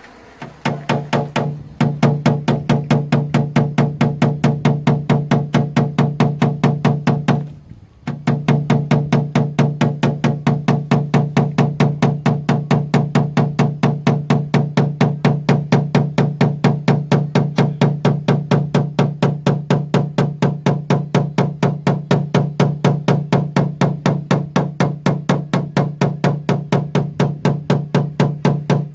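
Rapid, even tapping of a PDR hammer on a knockdown tool against the steel rear door's body line, about four to five taps a second with a steady ringing tone, working the dent's high spots down. The tapping stops briefly about seven seconds in, then carries on.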